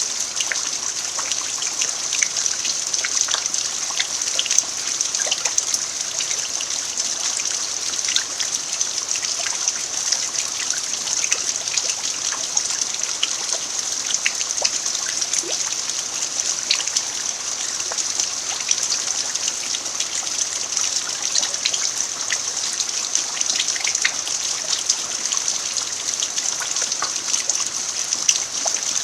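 Steady rain falling on a bare earth yard: an even hiss dotted with the ticks of single drops.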